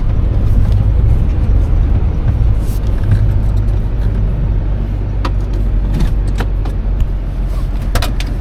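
Truck engine running with a steady low rumble, with a few light knocks on top.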